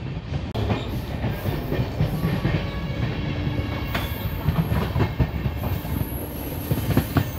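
Express passenger train running on the rails with a steady rumble, its wheels clicking over rail joints now and then.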